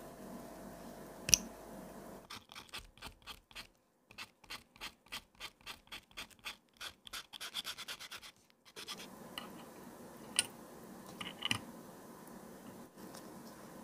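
Small hand work at a watchmaker's bench: a sharp click about a second in, then a run of short scratching strokes, about three a second, that quicken before stopping, followed by a few small clicks.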